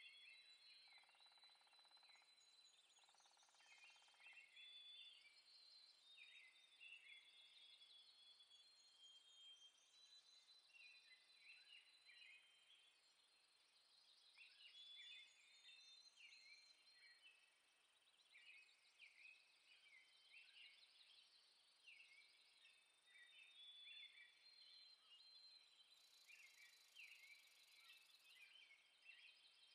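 Faint outdoor ambience of many small birds chirping and singing over and over, over a steady high-pitched drone.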